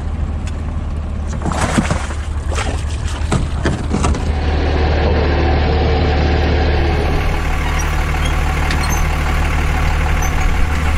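An engine or motor running steadily with a low hum, with a few sharp knocks in the first few seconds.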